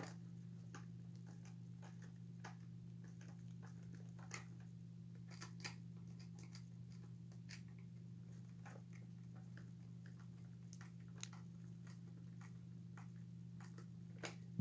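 Faint, irregular small clicks and taps of a screwdriver and plastic parts as screws are driven into a plastic animatronic figure, over a steady low hum.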